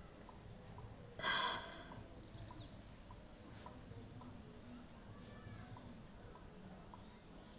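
A person sneezes once, a short sharp burst of breath about a second in. Behind it, steady high-pitched insect trilling, like crickets, with a few faint bird chirps.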